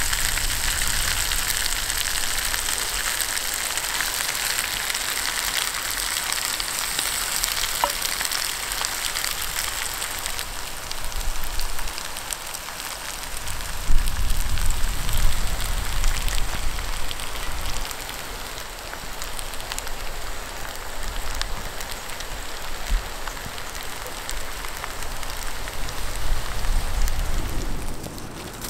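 Meat and potato stew sizzling in a hot clay pot: a dense, fine crackling hiss. About halfway through a sudden knock, then a low rumble under the sizzle.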